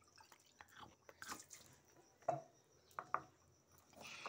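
Faint drips and a few light separate knocks as a hand moves about in a steel bowl of water.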